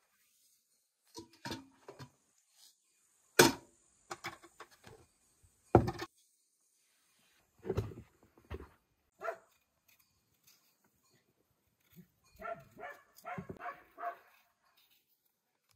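Scattered knocks and clunks of a metal bucket and pails being handled and set down, with two loud sharp knocks about two and a half seconds apart. Near the end comes a quick run of short sounds.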